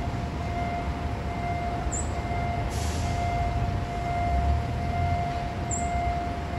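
Level-crossing warning alarm sounding one steady high tone without a break, over the low rumble of waiting traffic.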